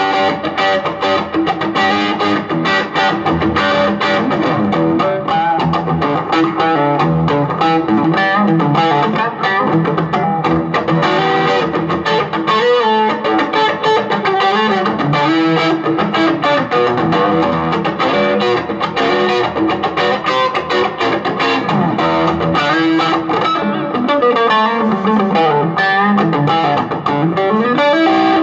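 Electric guitar played through a 15-watt Marshall MG solid-state combo amp: an unbroken stream of notes.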